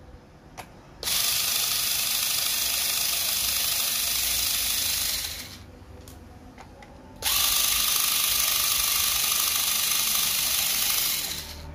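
FISCH 3.6 V cordless electric screwdriver running in two steady runs of about four seconds each, driving laptop case screws out, with a few light clicks before and between the runs as the bit is set on the next screw.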